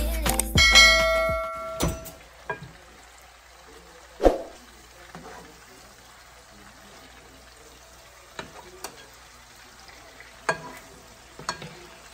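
Background music ends about two seconds in. After that, chicken thighs fry faintly in a pan, with a few light clicks of metal tongs against the pan; the loudest comes about four seconds in.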